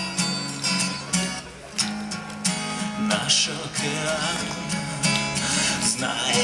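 Acoustic guitar strummed and picked in a steady chord pattern. A man's singing voice comes in about halfway through.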